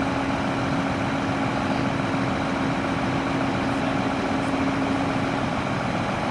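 A John Deere combine's engine running as the machine drives slowly, a steady drone with a steady hum that drops away near the end.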